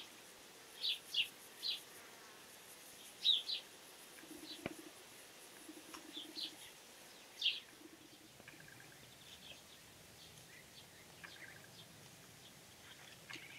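Small songbirds giving short chirps, scattered irregularly and several of them close together, over a faint background hiss.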